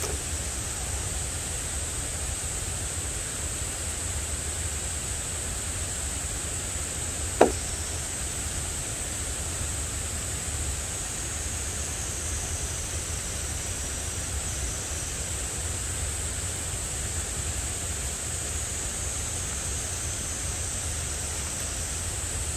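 Steady outdoor forest ambience: an even hiss with a constant high insect drone over it and a low wind rumble underneath. A single sharp knock comes about seven seconds in.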